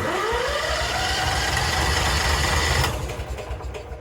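Electric starter cranking the gasoline engine of a Bigbear BBC72 wood chipper. It starts suddenly with a rising whine as it spins up, turns over steadily for about three seconds, then stops without the engine catching. The owner later found the emergency kill switch left in the kill position.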